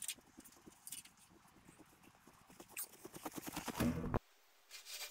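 Irregular crunching and clicking of someone working on foot with rope and wire rigging. It grows denser and louder until it cuts off abruptly about four seconds in, and a short burst of the same comes near the end.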